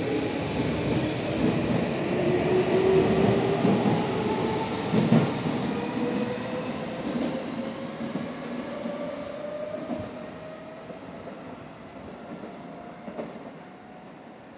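Tobu electric commuter train pulling out of the station and accelerating away. Its motors whine, rising steadily in pitch over the rumble of the wheels, with a sharp knock about five seconds in. The sound is loudest in the first few seconds and fades as the train recedes.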